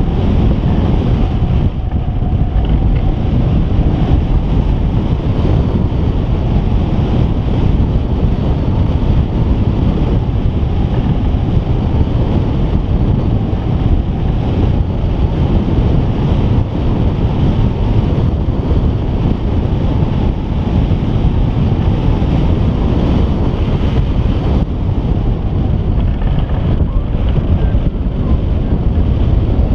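Steady, loud wind rushing over the microphone of a camera mounted on a hang glider in flight: the airflow of gliding, buffeting the mic with a continuous low rumble.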